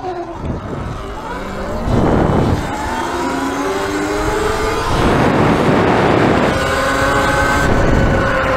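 Sur-Ron electric dirt bike's motor whining as it rides, the pitch rising with throttle and then easing slowly down, with two bursts of rushing noise.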